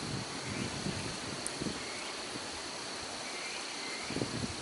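Insects trilling in one steady high tone over a steady outdoor hiss, with a few faint short chirps. Low irregular rumbles come and go, stronger near the end.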